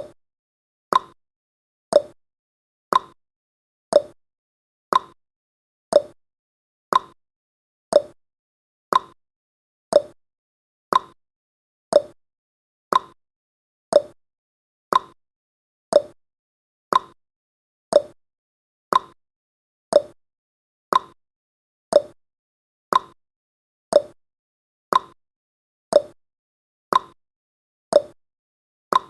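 Countdown timer's clock-tick sound effect: one short, sharp tick each second, alternating between a higher and a lower tick like a tick-tock.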